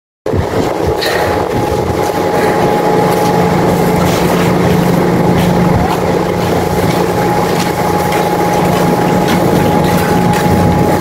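Engine running steadily at idle, a constant low hum with a steady higher whine over it, cutting in suddenly just after the start; faint knocks now and then.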